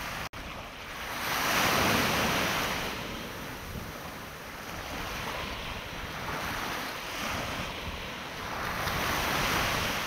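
Wind on the microphone over the wash of sea waves: a steady hiss of surf and wind that swells louder twice, with a momentary dropout just after the start.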